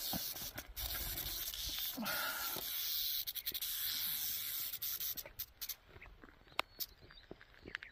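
Northern Pacific rattlesnake buzzing its tail rattle, a steady high hiss that stops about five seconds in. A few scattered clicks and scrapes follow.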